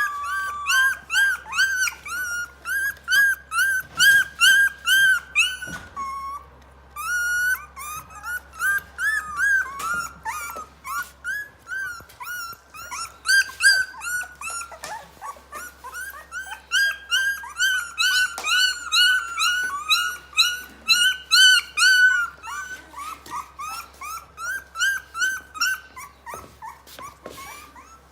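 Three-week-old Rottweiler puppies whimpering and squealing in a near-continuous run of short, high-pitched cries, a couple a second, with a brief pause about six seconds in.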